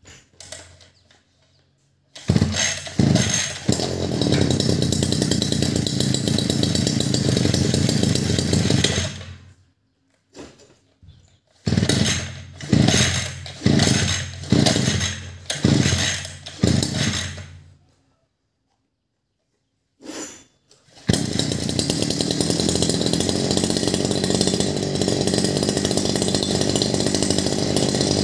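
Sun-Max 52cc two-stroke brush cutter engine pull-started: it catches and runs for about seven seconds, then dies. Further pulls bring several short bursts that die out, until it catches and runs steadily, unloaded, for its first run as a new engine.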